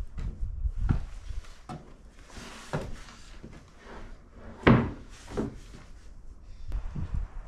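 Freshly sawn maple slabs being handled and stacked, wood knocking on wood several times, the loudest thump about four and a half seconds in.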